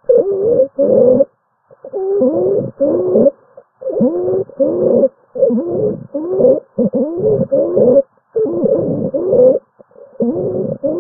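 Stridor: noisy breaths in quick succession, more than one a second, each with a wavering pitched tone that slides up and down. Stridor is the sign of a narrowed upper airway.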